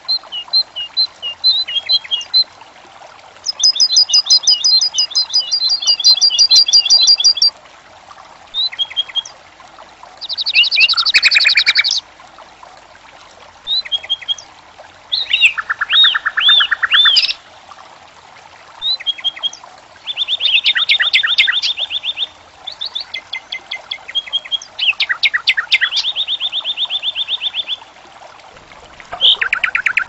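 A songbird singing in about a dozen short phrases of repeated high notes and rapid trills, each one to four seconds long with brief pauses between. Under the song, a small fountain's water trickles faintly and steadily.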